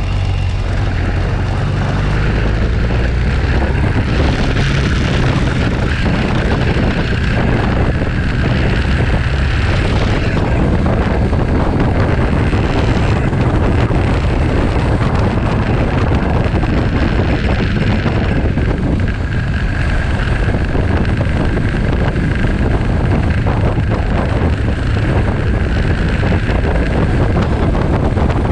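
Motorcycle riding at road speed: steady engine drone mixed with heavy wind rush on the microphone.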